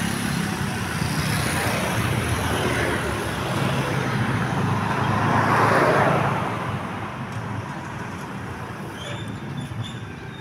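Road traffic noise, with engine rumble and tyre noise from a vehicle passing close by: it swells to its loudest about six seconds in, then fades away.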